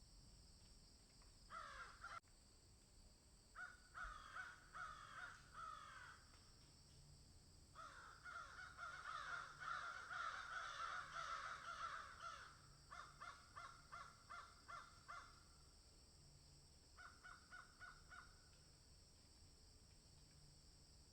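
A flock of crows cawing: scattered calls at first, then many crows cawing over one another for several seconds, followed by runs of short, quick caws.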